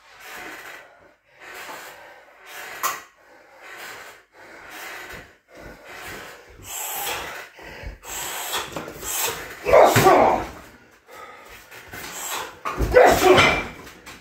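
A person breathing hard, catching his breath after heavy-bag work: panting strokes about one a second, with two louder, longer breaths in the second half.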